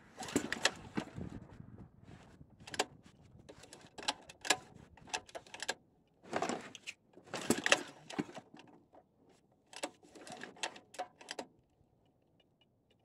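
Recoil starter on a Honda GX-series big-block single-cylinder engine pulled in several short, jerky strokes, the engine turning over without firing. The pulls are hard and the starter yanks back, which the owner takes for something wrong with the valves.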